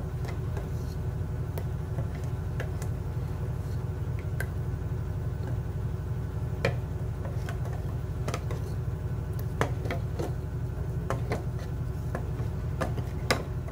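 Metal spoon stirring spinach batter in a blender jar, clinking lightly against the jar a few times, over a steady low hum.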